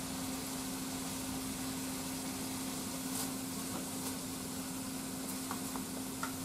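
Sliced pork sizzling in a frying pan as it is stirred with wooden chopsticks, over a steady low hum, with a few light ticks of the chopsticks against the pan near the end.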